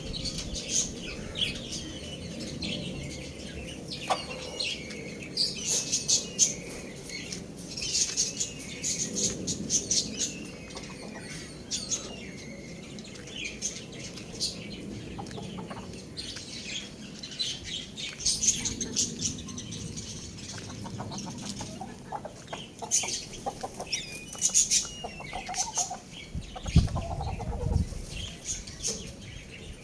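A flock of chickens and small birds chirping, peeping and clucking in many short calls, with wing flapping. A low rumble sounds near the end.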